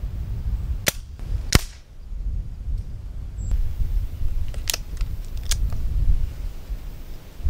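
Brocock Compatto Sniper HR pre-charged pneumatic air rifle firing: four sharp cracks in two pairs, each pair less than a second apart, with a few lighter clicks near the second pair. A steady low rumble of wind on the microphone runs underneath.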